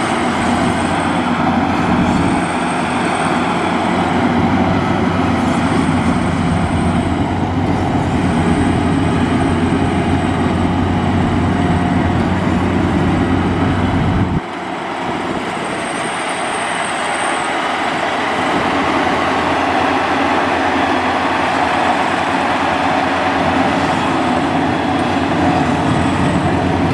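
Maxxi Bimo 102L rice combine harvester running as it crawls on its tracks through a paddy field, its engine and machinery making a steady loud drone. About halfway through the deep low rumble drops away suddenly, and the sound then slowly builds back up.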